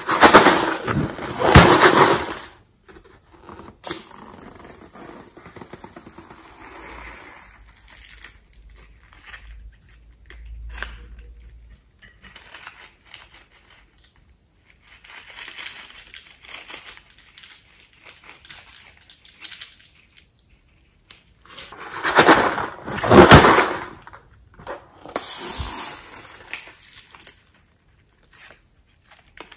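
Foamy slime squeezed and pressed by hand, crackling and squelching in irregular bursts. The loudest bursts come in the first two seconds and again about three-quarters of the way through.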